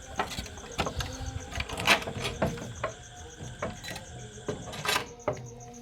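Crickets chirping steadily at night, with a scatter of irregular sharp clicks and knocks over them; the loudest knock comes about two seconds in.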